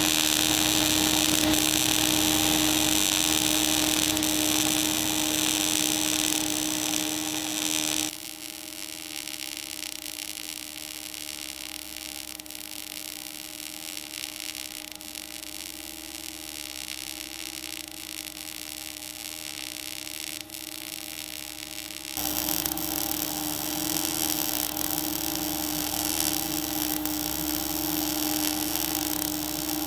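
MAG (gas-shielded wire) welding on steel, run vertical-up in short-arc mode at about 86 amps with a weaving torch: a steady arc hiss and crackle with a steady hum under it. It gets quieter about eight seconds in and louder again about 22 seconds in.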